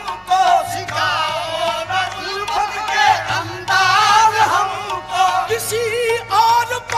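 Qawwali music: a lead voice sings long, wavering melodic lines over instrumental accompaniment with a steady rhythmic pulse underneath.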